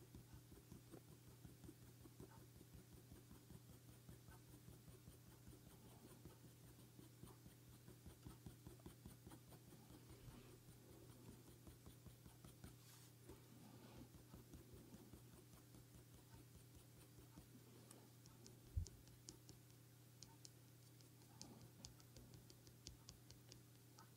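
Faint scratching of a coloured pencil on hot-press paper in short, rapid shading strokes. One soft thump about three quarters of the way through.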